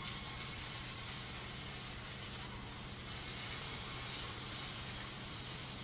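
Tuna burger patties sizzling steadily in hot oil in a frying pan.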